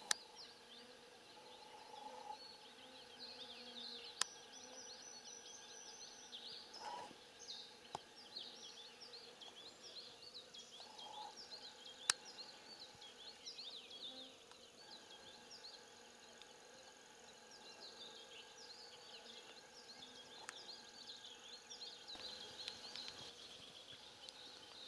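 Faint outdoor chorus of many short, high chirps from small wild creatures in the meadow, with a few sharp clicks.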